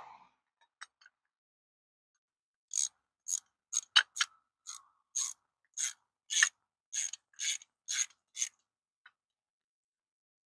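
Quarter-inch drive hand ratchet being swung back and forth, its pawl clicking in short bursts about two strokes a second, running motor mount bolts into an engine block. The clicking starts a few seconds in and stops after about six seconds.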